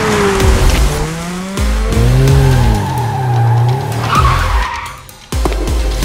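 Car tyres screeching in a long, wavering skid over electronic dance music with a heavy bass beat.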